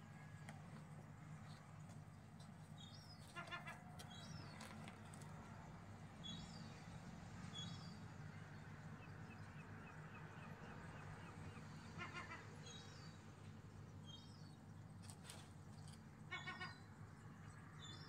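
Faint bird calls: short high chirps repeated every second or two, with a few quick rattling calls about three and a half, twelve and sixteen and a half seconds in, over a low steady hum.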